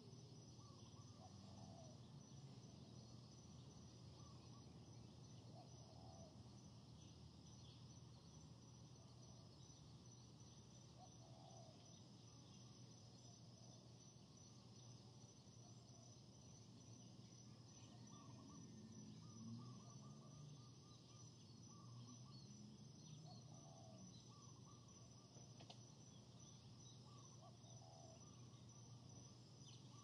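Faint forest ambience: a steady high insect chirring, with short distant bird calls repeating every few seconds and a low steady hum underneath.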